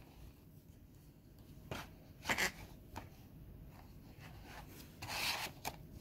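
A DVD/Blu-ray case and its discs being handled: brief rubbing and scraping sounds, one about two and a half seconds in and a longer one near the end, with a faint click just after it.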